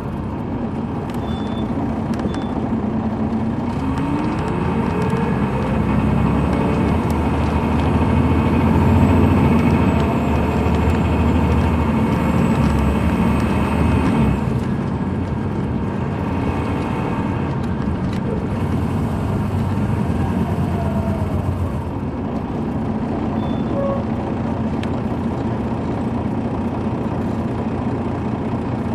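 Detroit Diesel Series 60 diesel engine of a 2003 MCI D4500 coach, heard from on board while it drives. The engine note climbs in pitch over the first several seconds, is loudest before the middle, then eases off about halfway through.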